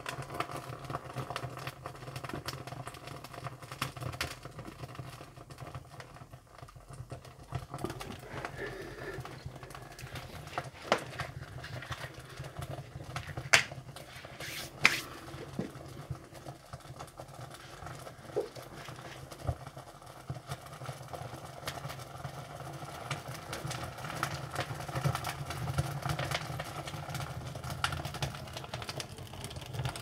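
Split firewood burning in the open firebox of a Feringer wood-fired sauna stove, crackling with scattered snaps and two sharper pops about halfway through, over a low steady hum.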